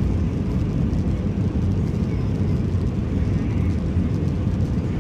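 Steady low rumble of an Airbus A320 in flight, engine and airflow noise heard from inside the passenger cabin.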